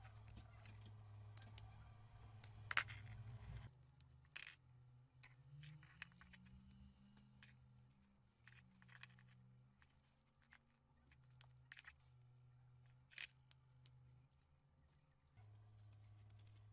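Near silence: room tone with a low hum that drops out about four seconds in and returns near the end, and faint scattered clicks.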